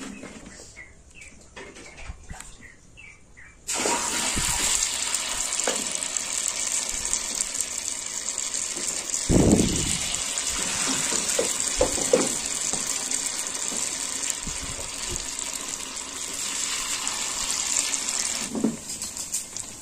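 Corn fritter batter frying in hot oil: a loud sizzle starts suddenly about four seconds in and runs on, easing near the end. A thump and a few clinks of a utensil against the pan come in the middle.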